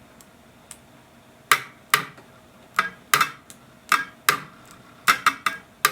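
About a dozen sharp, light taps or knocks, each with a short ring. They start about a second and a half in, come irregularly two or three a second, and crowd closer together near the end.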